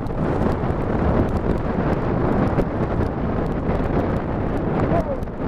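Strong wind buffeting the microphone: a loud, gusting rumble, with faint scattered ticks over it.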